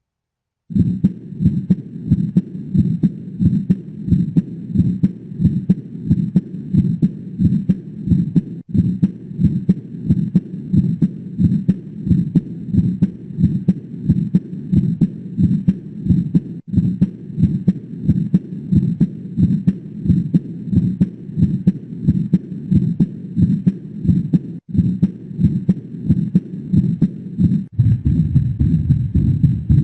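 Recorded heart sounds from stethoscope auscultation: repeated low thumps of the heartbeat in a steady rhythm. The recording loops with a brief break about every eight seconds. Near the end it changes to a different, lower-pitched heart-sound recording.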